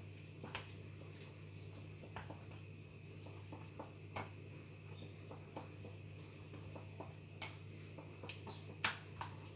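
Faint, scattered light clicks and taps of a spoon against a glass and jar as thick honey is spooned into onion and lemon juice, over a steady low hum.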